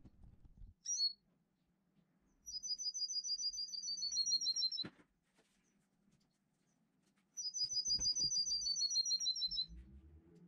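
Songbird singing: a short high call about a second in, then two trilled phrases of rapid, evenly repeated high notes, each about two seconds long and dropping slightly in pitch at the end, the first finishing with a sharp downward sweep.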